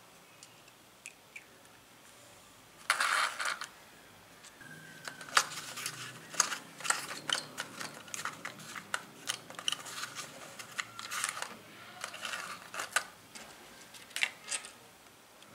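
Miniature porcelain tea set pieces clicking and clinking together as they are handled, set into a tray and stacked. A brief rustle about three seconds in, then a run of light, sharp clicks of porcelain on porcelain.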